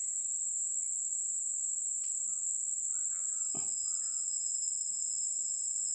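Insects keeping up a steady, high-pitched drone, with a few faint chirps and a single soft knock a little past the middle.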